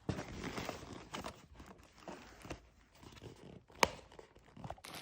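Plastic packaging being handled and rustled, with scattered light clicks and one sharp click nearly four seconds in.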